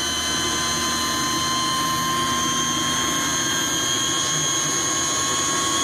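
ELIICA's 80-horsepower electric motor running on a test bench, giving a steady high-pitched whine over a low hum.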